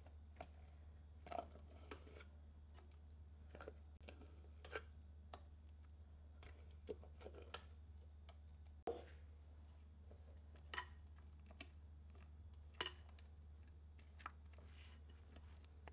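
Spatula tapping and scraping against a glass jug and glass mixing bowl as whipped mascarpone cream is scooped out and folded into pumpkin puree: scattered soft clicks and scrapes over a low steady hum.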